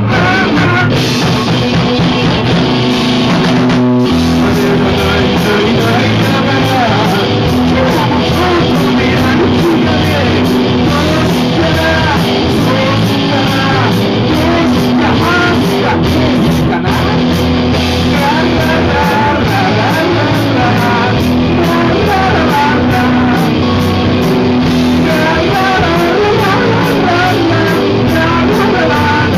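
Live rock band playing loud: a man singing over electric guitar and drums, with a steady beat.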